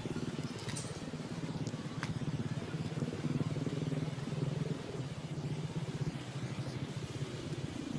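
Steady low rumble of an engine running at idle, with a rapid even pulse.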